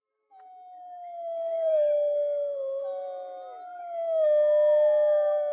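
A pack of wolves howling together: several long howls overlap at different pitches, a lower one sliding down while higher ones glide above it. The howls start a moment after a brief silence.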